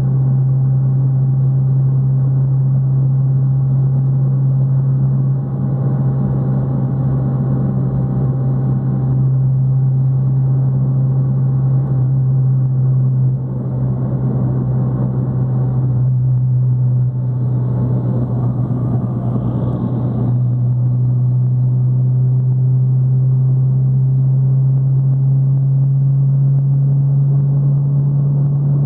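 Fiat Palio's exhaust droning steadily at highway cruising speed, one deep, unchanging tone under road noise.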